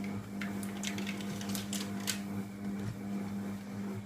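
Monsieur Cuisine food processor running with a steady low hum as it stirs butter, egg and sugar on speed 2 while heating to 60 °C. A few light clicks and crinkles from a quark tub being opened sound over it.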